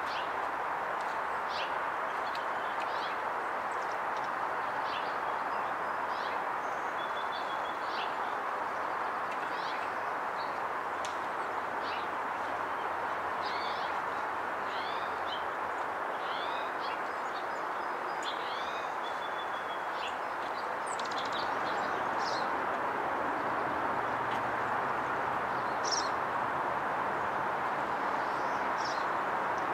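Small songbirds give short, high chirps and calls, scattered through and most frequent in the middle. Under them runs a steady outdoor background rush.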